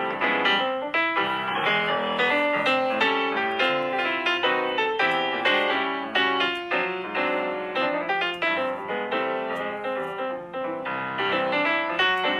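Background piano music: a quick run of struck notes.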